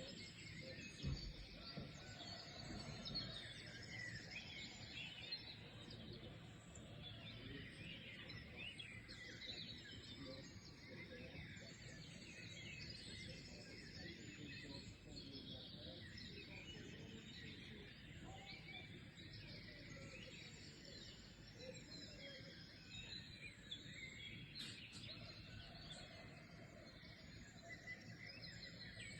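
Faint chorus of wild songbirds, many short chirps and twitters overlapping without pause, over a steady low background noise, with a soft low thump about a second in.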